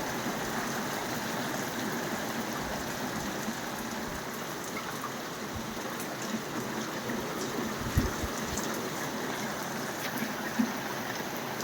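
Torrential rain falling steadily in a heavy downpour, a continuous hiss of water, with a couple of sharper taps two-thirds of the way through and again near the end.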